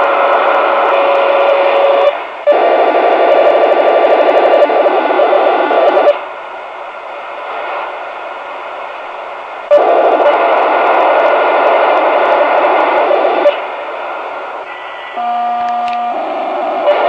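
Royce 639 AM CB radio receiving power-line-communication (PLC) interference: a loud, harsh buzzing noise laced with steady tones that blots out the channel. It drops back about six seconds in, returns about ten seconds in, and eases again near the end, where a few clean steady tones stand out.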